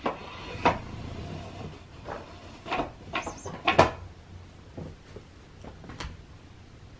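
A series of irregular knocks and clacks, about eight in all, the loudest a little under four seconds in.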